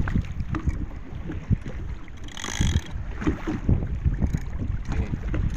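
Wind buffeting the microphone over waves lapping against a small open boat, with scattered light knocks. A brief higher-pitched sound comes about two and a half seconds in.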